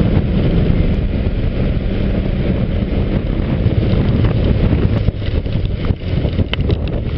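Motorcycle engine running at road speed under heavy wind noise on the microphone; the engine note drops lower about halfway through.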